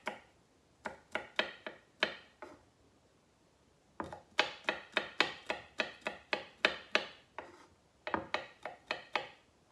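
Chef's knife chopping smashed garlic cloves on a wooden cutting board: quick strikes, about three or four a second, in three runs with a pause of about a second and a half near the start.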